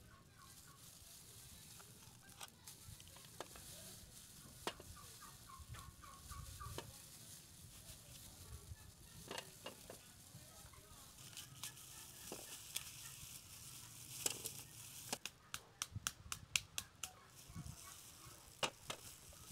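Poultry calling faintly in the background: two short, rapid rattling calls in the first several seconds. Near the end, a quick run of sharp clicks, the loudest sounds.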